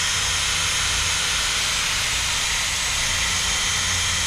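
Electric drill running steadily with a high whine, boring a 3/8-inch hole through a PVC pipe.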